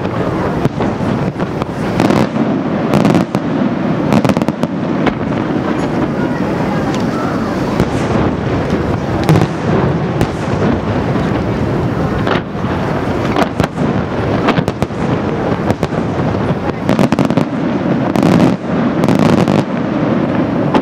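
Fireworks display going off: aerial shells bursting one after another, many sharp bangs in quick succession with no pause.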